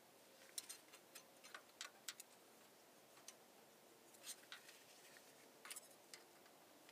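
Faint, scattered metallic clicks and ticks of a steel feeler gauge being handled and slipped between the rocker arms and valves of a Cummins 5.9 12-valve diesel, as the valve lash is rechecked. The clicks come in three small clusters, the first lasting about a second and a half.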